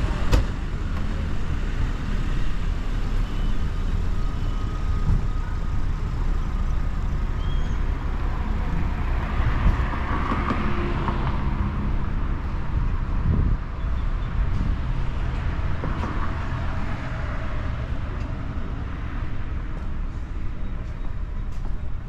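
City street traffic: vehicle engines running and cars passing steadily, with passing vehicles swelling louder about ten and sixteen seconds in. A sharp knock sounds right at the start.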